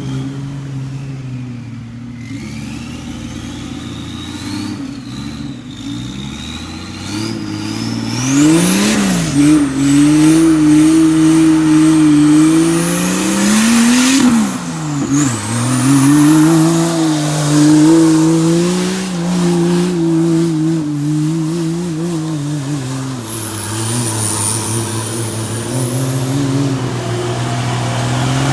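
Engine of a lifted off-road 4x4 on mud tyres working under load as it climbs a muddy slope. It grows louder about eight seconds in, then the revs rise and fall again and again as the driver works the throttle. A thin, high-pitched whine climbs in pitch alongside it.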